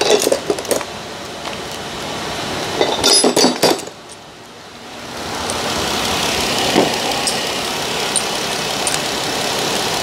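A few metal hand-tool clinks and clicks, then a steady running noise from the Jeep Wrangler's engine compartment that comes up about five seconds in and holds steady.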